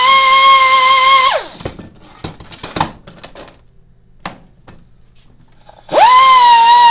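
Air die grinder whining at high speed, then spinning down about a second in. A few light knocks follow as the steel part is handled. The grinder starts again near the end, its pitch dipping and wavering as it grinds a weld bead flush.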